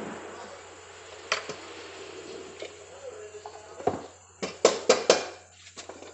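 Metal hand tools knocking and clanking against a dismantled motorcycle engine's casing. There are a couple of light clicks, then a quick run of about five sharp knocks a little past the middle.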